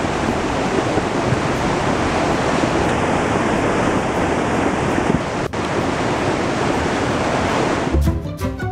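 Muddy flash flood water rushing down a canyon creek bed: a steady, churning noise of water. Music cuts in near the end.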